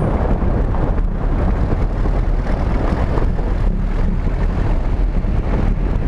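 Steady wind rumble on the microphone of an action camera mounted on a moving vehicle, mixed with engine and road noise.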